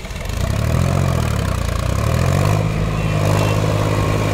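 Solis tractor's diesel engine running under load as the tractor works through a flooded paddy on full cage wheels, growing louder over the first second and then holding a steady note.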